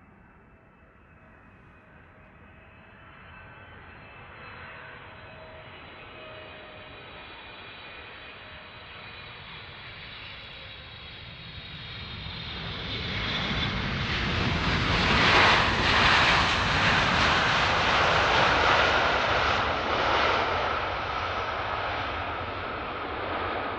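A large jet airliner's engines on landing approach: a faint whine grows steadily louder as it nears, loudest about two-thirds of the way through as it passes, then holding strong with a steady whine.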